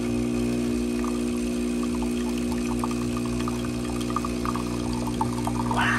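Breville espresso machine's pump humming steadily during a shot, as espresso streams from the portafilter spouts into a mug with faint dripping ticks. A brief louder sound comes near the end.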